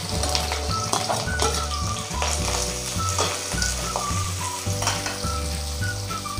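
Sliced onions sizzling in hot oil in an aluminium kadai as they are stirred, with the spatula clicking and scraping against the pan. Background music plays underneath.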